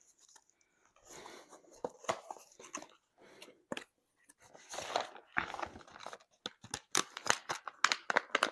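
Packaging of a diamond painting kit being handled and opened: irregular plastic and paper crinkling and rustling with small clicks and taps. It starts about a second in and gets busier past the middle.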